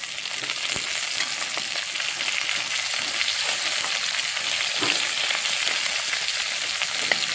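Sliced onion sizzling in hot oil in a cooking pot with browned chicken and garlic, a steady frying hiss with a few faint clicks.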